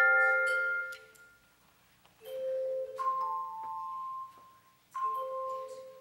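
Handbells rung by a children's handbell choir: slow, spaced chords, each struck together and left to ring and fade. There is a short near-silent pause about a second in, then a new chord, a couple of higher notes a second later, and another chord near the end.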